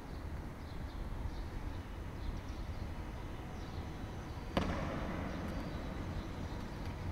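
Wind buffeting the microphone as a steady low rumble. About four and a half seconds in there is a single sharp bang with a short ringing tail.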